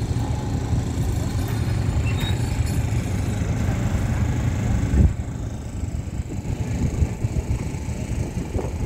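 Low, steady vehicle rumble that eases off after a short thump about five seconds in.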